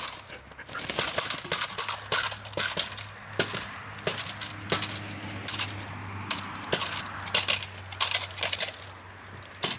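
Repeated sharp cracks, irregular at about two to three a second and starting about a second in, from a mondioring decoy's stick striking during bite work with a Belgian Malinois.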